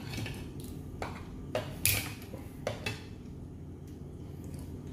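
Hard shells of steamed mud crab being cracked and pulled apart by hand and teeth: a handful of separate sharp cracks and clicks, the loudest about two seconds in.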